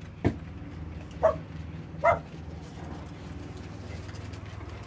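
Small dog barking: a few short single barks in the first couple of seconds.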